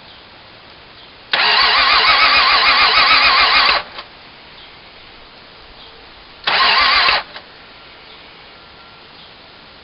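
An engine being cranked by its starter motor without catching: a crank of about two and a half seconds, then a short one of under a second, each stopping abruptly. The engine won't start.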